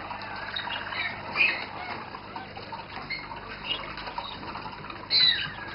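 Several roller canaries singing in their contest cages: a run of short gliding, rolling notes, with one louder, brighter phrase about five seconds in.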